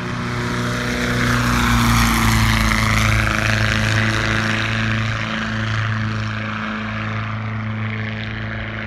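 Propeller-driven biplane passing low overhead: a Volkswagen-based engine bored and stroked to about 100 horsepower, turning an 84-inch Culver propeller through a reduction drive. The engine drone swells to its loudest about two seconds in, dips slightly in pitch as the plane passes, then fades slowly as it climbs away.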